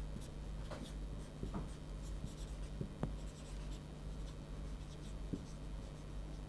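Whiteboard marker writing on a whiteboard: faint, irregular short strokes and taps of the tip against the board, over a low steady hum.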